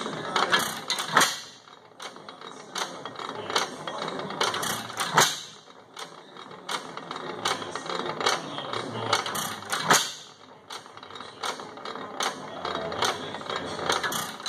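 5 HP Sattley single-cylinder hit-and-miss gas engine running: it fires with a sharp bang three times, about every four to five seconds, and coasts on its flywheels between firings with light, regular mechanical clicking.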